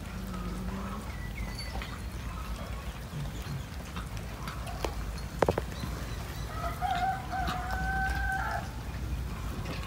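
A single drawn-out animal call, held at one steady pitch for about two seconds, about two-thirds of the way through, over a low steady rumble. A sharp click comes a second or so before it.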